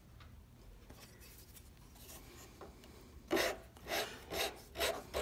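Hand file rasping across the rosewood of a plane tote in short strokes, about two a second, starting a little past three seconds in, taking glue squeeze-out off the freshly glued horn.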